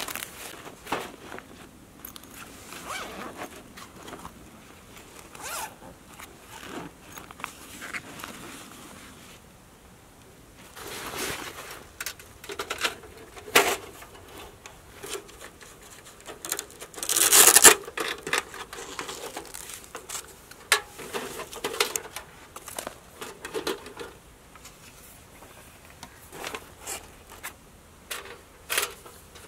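Zips being pulled open and fabric rustling as gear is unpacked from a backpack, with the longest and loudest zip rasp a little past halfway. Light metal clicks and scrapes come from a Winnerwell titanium folding wood stove being taken out and unfolded.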